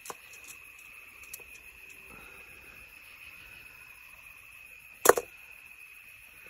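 A steady high-pitched insect drone, like crickets, with a few faint clicks and one short, loud handling noise about five seconds in.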